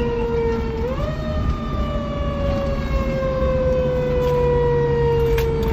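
Fire engine siren wailing: one tone that rises briefly about a second in, then slowly falls in pitch, over the truck's low engine and road rumble.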